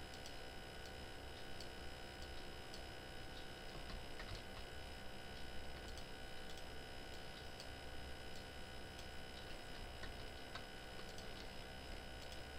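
Scattered faint clicks of a computer mouse and keyboard over a steady electrical hum and hiss.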